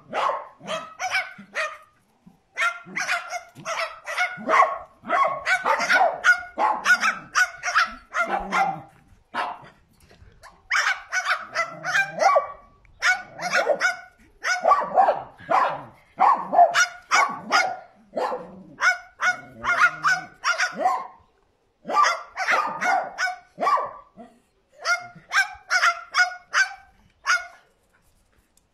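Cockatoo imitating a dog's bark: quick runs of short, sharp barks, several a second, broken by brief pauses.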